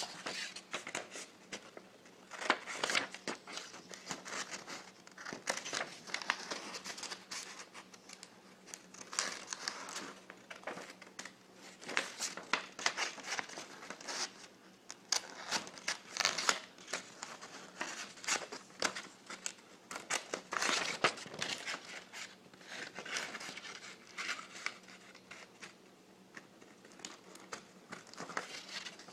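Scissors cutting through paper in many short, irregular snips, with the sheet rustling and crinkling as it is turned.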